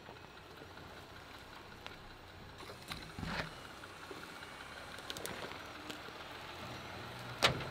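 Jeep Gladiator Rubicon's 3.6-litre V6 running at low speed as the truck crawls down a steep, rough slope. Sharp cracks break in about three seconds in and, loudest, near the end.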